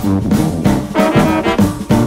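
Background music led by brass instruments, a run of quick, evenly paced notes.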